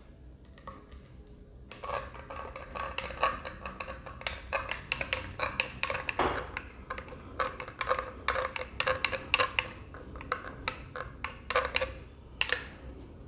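Metal teaspoon stirring coffee in a glass mug, clinking rapidly and repeatedly against the glass, starting about two seconds in.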